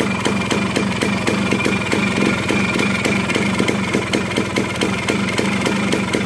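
Suzuki 100cc two-stroke single-cylinder motorcycle engine idling steadily, with a fast, even beat of firing pulses and no change in speed.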